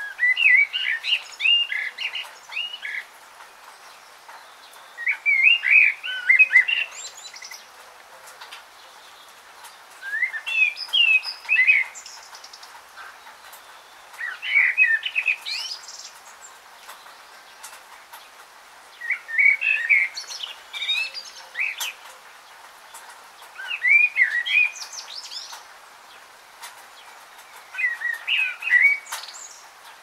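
A songbird singing: a quick, warbled phrase of about two seconds, repeated seven times with pauses of a few seconds between.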